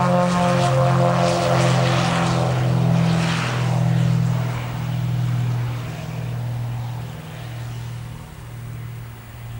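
Cessna 340's twin turbocharged six-cylinder piston engines and propellers at full takeoff power, a steady droning buzz with a rasping edge. It fades steadily as the plane rolls away down the runway.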